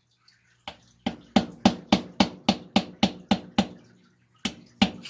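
Sharp metal-on-metal taps on the flywheel key of an 8 hp Tecumseh engine's crankshaft, to drive it loose: a quick run of about eleven taps at three to four a second, then after a pause two or three more near the end.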